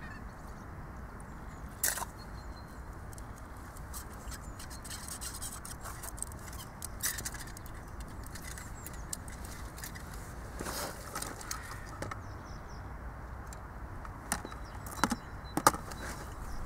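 Small clicks and scrapes of hands handling ice-fishing tackle, scattered through a steady low background noise. The sharpest clicks come about two seconds in and in a quick cluster of three near the end.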